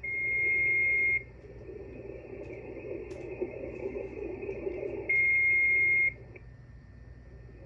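Steady high whistle of a carrier heterodyning on the frequency, heard through an HF transceiver's speaker on 20-metre sideband. It sounds twice, each time for about a second: once at the start and once just past the middle. Between and after, a faint garbled hiss-and-mumble of weak signal comes through.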